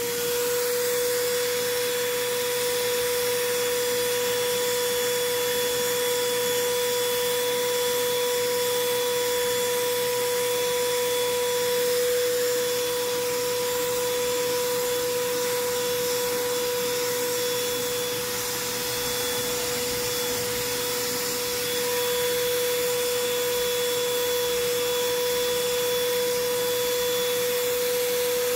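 Schulz electric paint spray gun running continuously while spraying matte black vinyl paint, set to its minimum flow. It makes a steady, high, even whine over a hiss of air and atomised paint.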